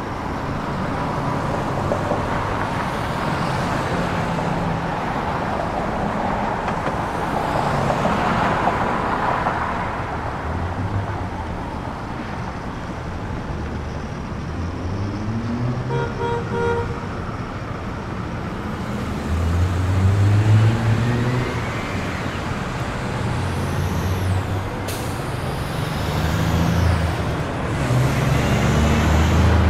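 Heavy truck engine sounds that come and go and rise and fall in pitch, with a short run of beeping tones about halfway through.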